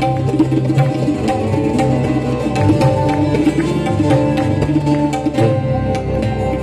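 Live Indian ghazal-style ensemble music: tabla playing a steady rhythm under sustained melody notes on stringed instruments.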